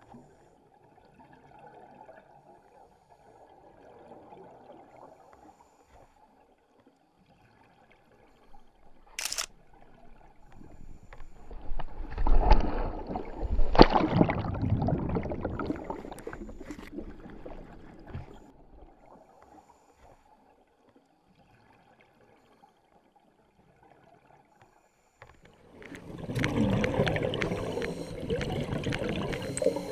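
Muffled water sounds with camera handling noise, mostly faint, with a sharp click about nine seconds in and louder rushing, bubbling stretches between about 12 and 15 seconds and again near the end.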